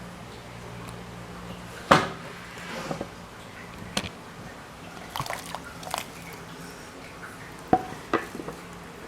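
Scattered clinks and knocks of kitchen utensils with dripping liquid, over a steady low hum.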